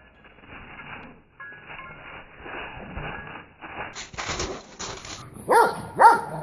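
Dogs at play: a dog gives three sharp barks about half a second apart near the end, after several seconds of faint scuffling noise.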